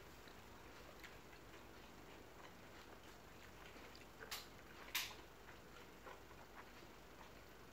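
Near silence with a few faint, short clicks; the two clearest come about four and five seconds in.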